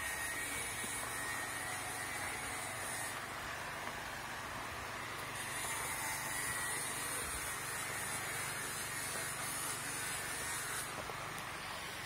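Steady rushing of a mountain river and waterfall, with a high hiss that comes in twice over it.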